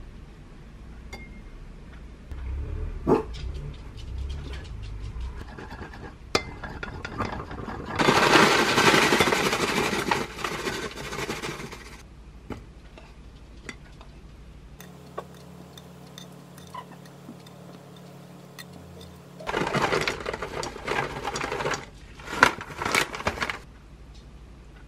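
Granola pouring from a pouch into a speckled enamel bowl, a dry rattling rush about eight seconds in that lasts some four seconds. Around it are scattered clicks and knocks of bowl and packaging being handled, a low steady hum in the middle, and a run of louder handling noises near the end.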